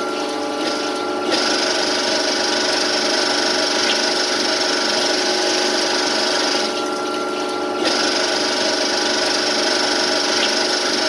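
CNC lathe running with steady machine tones while a knurling tool rolls its pattern into a spinning brass bushing, giving a steady hiss. The hiss starts about a second in, stops for about a second around the middle, then resumes.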